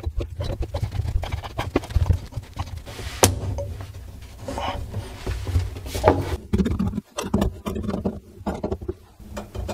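Plastic slip nuts and drain pipe parts clicking and knocking irregularly as they are fitted and hand-tightened onto a bathroom sink drain and chrome U-pipe.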